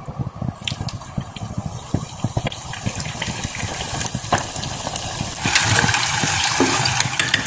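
Spring rolls deep-frying in hot oil in a small saucepan: bubbling with many small crackles and pops, turning to a louder, steady sizzle about five and a half seconds in.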